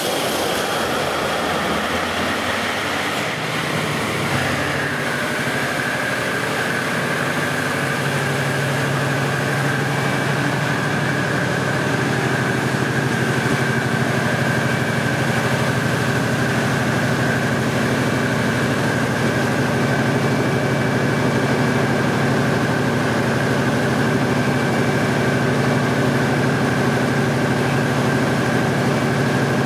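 Large Caterpillar diesel generator set running steadily. A high steady whine joins the engine note about five seconds in.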